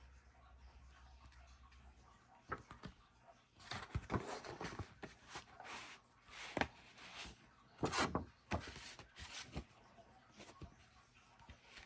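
Hands handling packaging: irregular clicks, taps and rustling from about two and a half seconds in, dying away near the end.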